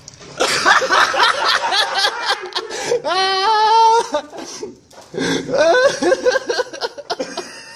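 People laughing hard in bursts, with one long, drawn-out, high laugh about three seconds in, a short pause, then more laughter.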